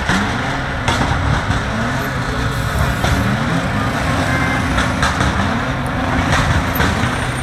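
Slow, dense road traffic of cars and trucks driving past, their engines running with pitch rising and falling as they speed up and slow down, with a few sharp knocks.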